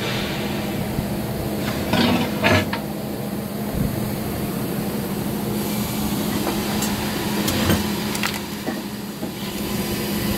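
A steady low machine hum, with a few knocks, clinks and rubbing sounds of metal parts and tools being handled on a workbench. The loudest clinks come about two seconds in and again near eight seconds.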